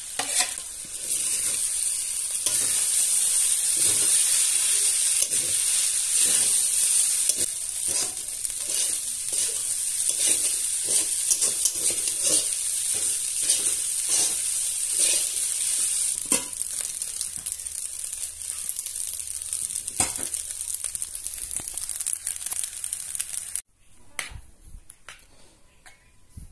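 Rice and Maggi noodles sizzling in a hot pan while a metal spatula scrapes and stirs them, with frequent short scrapes over a steady sizzle. Near the end the frying cuts off abruptly, leaving only a few faint clicks.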